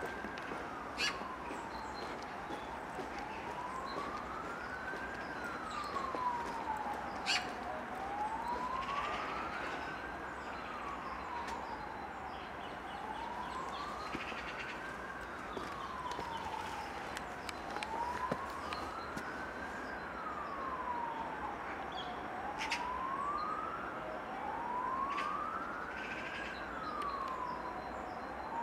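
Emergency-vehicle siren in a slow wail, rising and falling about once every five seconds without a break, with a few short clicks over it.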